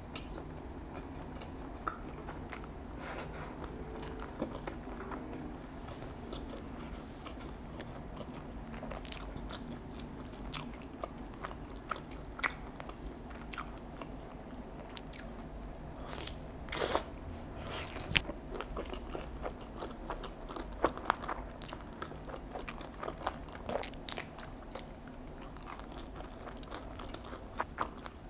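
A person biting and chewing boneless fried chicken: irregular crisp crunches of the fried coating, busiest and loudest from a little past halfway to about three-quarters of the way through.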